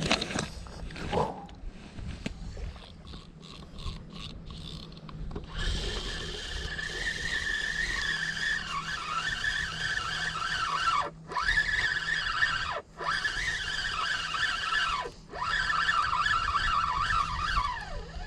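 A motor engine with a high, wavering whine, starting about five seconds in. Three times its pitch falls steeply and the sound drops out briefly before coming back, and it falls away again near the end.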